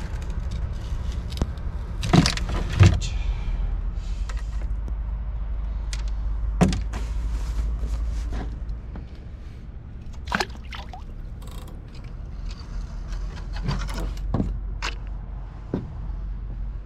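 Scattered knocks and clatters of frozen bait and fishing tackle being handled on a small boat, about half a dozen sharp ones spread through, over a steady low rumble that drops a little about eight seconds in.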